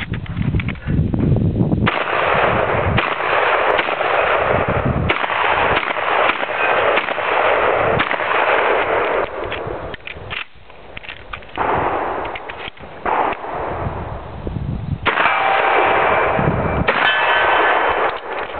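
A string of loud shotgun shots fired on a 3-gun course of fire, with short breaks between groups of shots.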